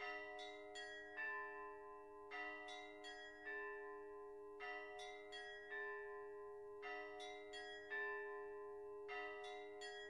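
Church bells ringing: a repeating pattern of quick strikes on smaller bells, recurring about every two seconds, over the steady hum of lower bells.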